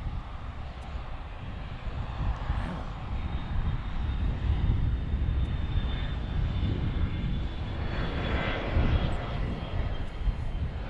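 Boeing 747's four turbofan engines running at high power as the jet rolls along the runway: a deep, steady rumble that swells twice, a couple of seconds in and again near the end.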